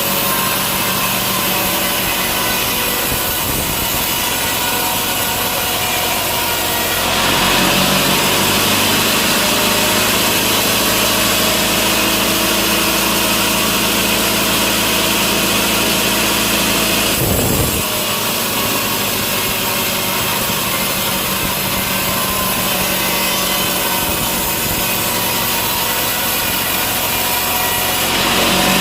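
Sawmill saw running and cutting through a log: a steady machine hum, with a louder, brighter cutting sound from about seven seconds in that drops away at about seventeen seconds while the machine keeps running, then returns near the end.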